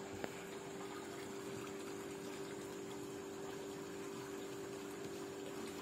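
A small motor humming steadily, with a faint even hiss.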